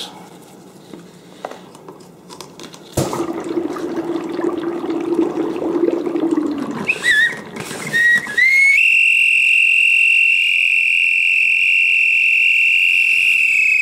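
Dry ice fizzing and bubbling in hot water after a knock, then a plastic whistle glued into the container's lid, driven by the escaping carbon dioxide gas. It gives a few short rising chirps about seven seconds in, then settles into a loud, steady, high whistle about nine seconds in.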